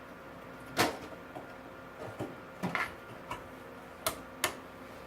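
Several short, sharp plastic clicks and knocks: a RAM stick being pushed down into its motherboard slot, the slot's retention tabs snapping as it seats.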